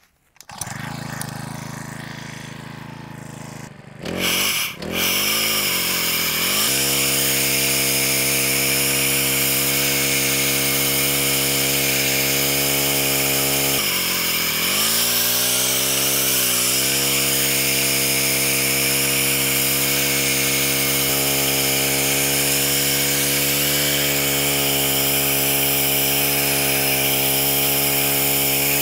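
Gas line-trimmer engine driving a rotary scissor head with counter-rotating blades. It catches right at the start and runs low for a few seconds, revs up, then holds a steady high-speed run, with one brief dip and recovery in revs about halfway.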